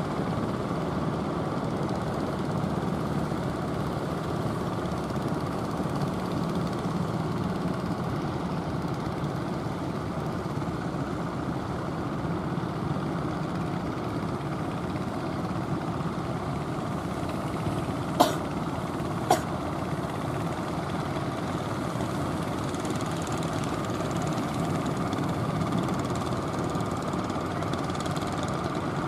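Steady rumble of the engines of wooden outrigger fishing boats under way. Two sharp clicks come about two-thirds of the way in, a second apart.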